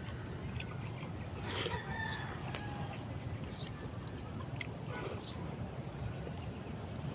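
A rooster crows once in the background, one held call about a second and a half in, with a few light clicks and a steady low hum beneath.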